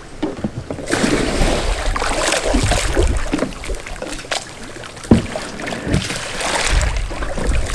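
Pool water splashing and sloshing as a sea kayak capsizes and is rolled back upright with a wooden Greenland paddle, with one sharp splash about five seconds in.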